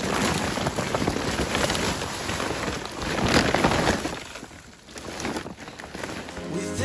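Footsteps crunching through snow: a dense crackling noise that swells and fades as the steps go on.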